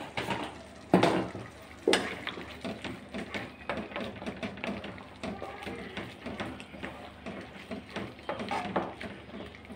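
Wooden spatula stirring a thick gravy in a nonstick pan: two sharp knocks about one and two seconds in, then a run of small irregular scrapes and clicks as the spatula works through the sauce.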